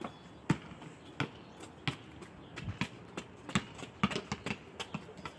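Basketball being dribbled on a concrete driveway: a series of sharp bounces, roughly two a second at first and coming faster from about three and a half seconds in.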